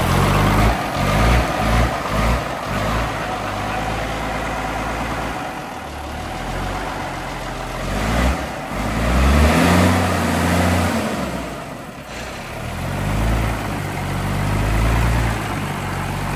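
Rat truck's inline-six diesel engine running, revved up and let fall back three times, its pitch rising and falling with each rev.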